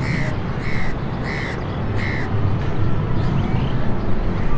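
Steady low drone of a formation of military helicopters flying past, with four harsh bird calls, about two-thirds of a second apart, in the first half.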